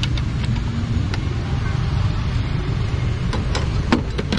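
Metal ladle clinking and knocking against a steaming pot of broth a few times, mostly near the end, over a steady low background rumble.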